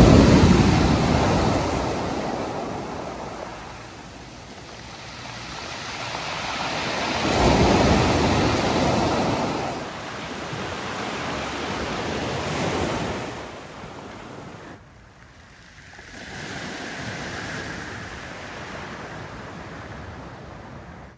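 Small waves breaking and washing up a pebble beach, swelling and falling away in surges every few seconds.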